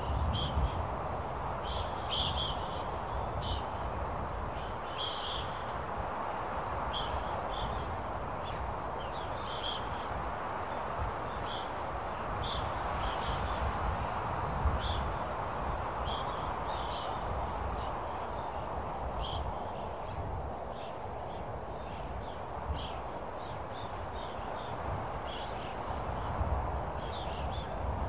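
Open-air ambience: a steady wind with a low rumble, and short, high bird chirps scattered irregularly throughout.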